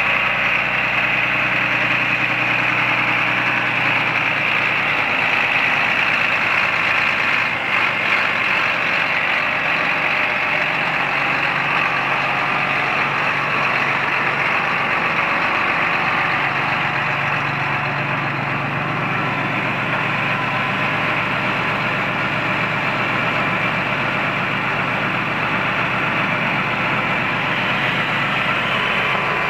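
John Deere 8400 tractor's six-cylinder diesel engine running steadily at an even speed.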